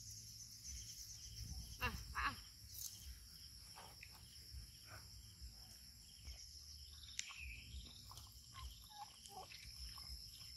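Steady high-pitched drone of insects, with a few faint, short falling squeaks or calls from an animal about two seconds in and again around seven seconds in, over a low rumble.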